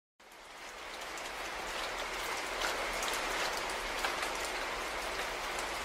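Steady rain falling, fading in over about the first second, with scattered individual drop taps.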